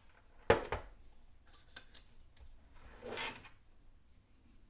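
Hard plastic clicks and knocks from handling the electric screwdriver and its storage case: a sharp knock about half a second in, a second one just after, a few lighter clicks, then a short scraping slide about three seconds in.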